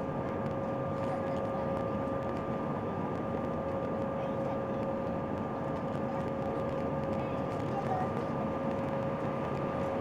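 Steady cabin noise of an Airbus A319-131 airliner in flight, its IAE V2500 engines and airflow making an even rushing sound with a constant steady hum on top.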